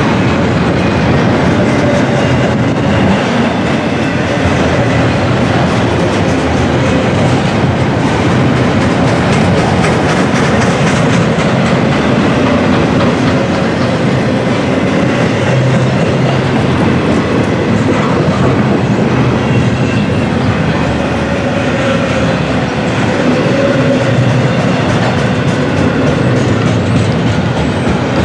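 Freight train cars, autoracks and intermodal container cars, rolling steadily past, their wheels clicking over the rail joints, with a faint wavering squeal from the wheels.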